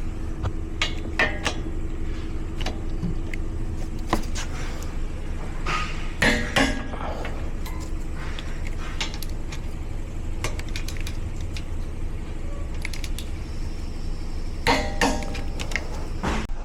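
A vehicle running with a steady low rumble, with scattered clicks and creaks and two louder creaking bursts, one about six seconds in and one near the end.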